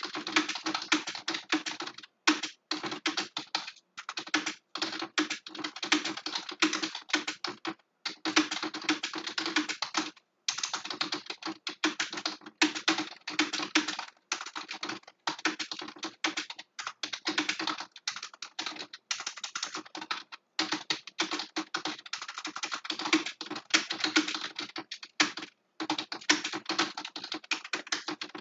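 Fast, continuous typing on a computer keyboard, rapid key clicks in runs broken by brief pauses.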